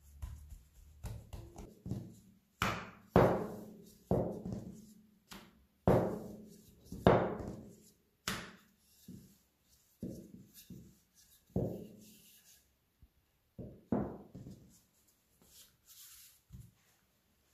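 Hands patting, pressing and flipping a ball of yeast dough on a stainless steel worktop: about a dozen irregular dull thumps, each ringing briefly off the metal.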